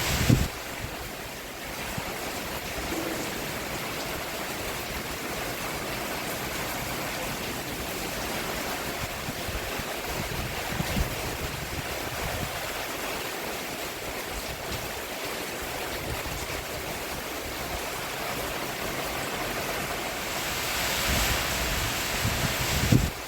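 Steady rain falling on a roof, with a few brief low thuds and the rain swelling louder in the last few seconds.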